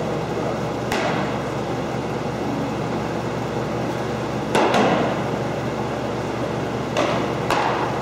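Sharp smacks of baseballs hitting leather gloves, four in all. The loudest comes about halfway through, as a pitch lands in the catcher's mitt. A steady background hum runs underneath.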